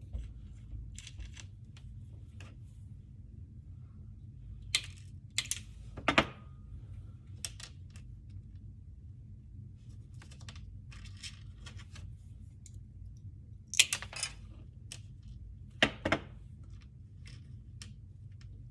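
Scissors cutting: irregular short snips and clicks, the loudest about six seconds in and again near fourteen and sixteen seconds, over a steady low hum.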